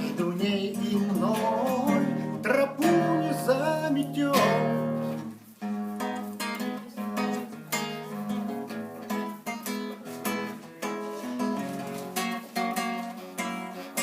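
Acoustic guitar strummed chords with a man's voice holding the closing sung notes for about the first four seconds, then the guitar strumming alone.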